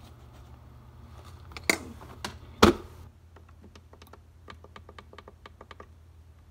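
Kitchen items being handled: three sharp knocks, the third and loudest about two and a half seconds in, then a quick run of light clicks, about six a second for some two seconds, over a low steady hum.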